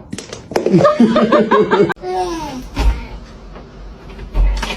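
A person laughing in quick repeated bursts, then a falling vocal sound, followed by two dull thumps.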